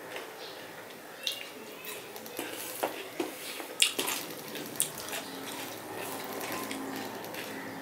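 Fingers mixing rice with fish curry on a steel plate: wet squishing, with a few short sharp clicks of fingers against the metal, the sharpest about four seconds in.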